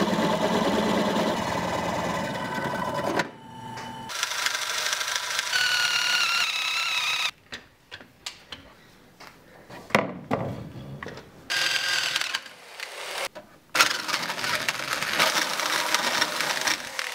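Electric drill boring into a thick wooden beam with a spade bit, the motor running steadily in several runs with short pauses between them. In the longer pause near the middle, a few sharp knocks of wood being handled.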